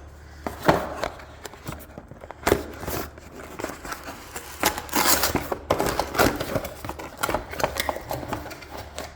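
Handling noise from a new downlight fitting: irregular clicks and light knocks with some crinkling, over a low steady hum.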